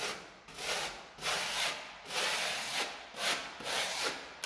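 Half-round spatula scraping across a wall in a run of about six back-and-forth strokes, spreading and blending wet decorative paint.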